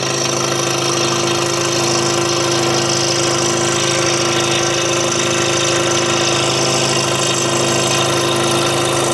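Scroll saw running steadily with an even motor hum and the hiss of the blade cutting through a wooden puzzle board.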